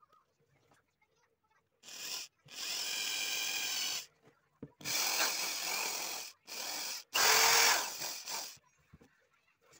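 Hand-held electric drill run in about five bursts of varying length, starting about two seconds in, its bit boring a hole through a wine cork.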